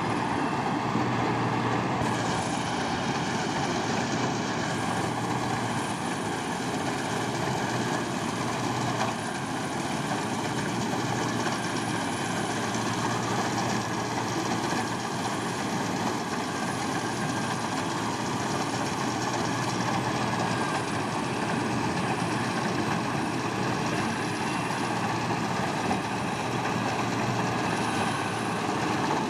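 A farm machine's engine and working mechanism running steadily at constant load, with a faint high tick repeating every second or two.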